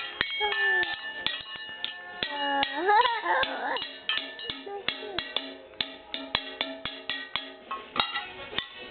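Small child beating metal kitchen pots and bowls as a toy drum kit: quick, uneven strikes, each pot ringing on after the hit. A child's voice sounds briefly about three seconds in.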